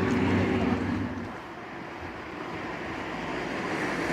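A motor vehicle's engine running with a steady low hum that fades about a second in, leaving a broad traffic rumble that swells again toward the end.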